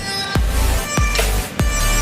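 Electronic dance music with a steady kick-drum beat, deep bass and held synth tones.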